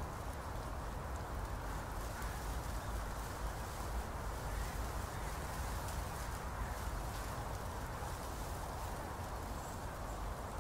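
Steady outdoor ambience: an even background of distant activity with a low rumble and faint scattered ticks, with no single sound standing out.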